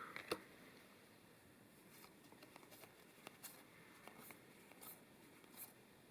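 Near silence with the faint rustle and soft clicks of trading cards being handled, one sharper click about a third of a second in and a few brief, faint swishes after it.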